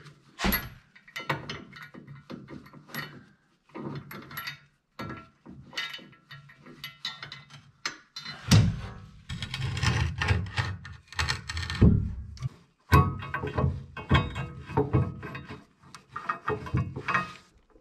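Irregular metal clinks and knocks of bolts and washers being handled and started by hand into a steel hitch rail bracket, with heavier thumps from about halfway in.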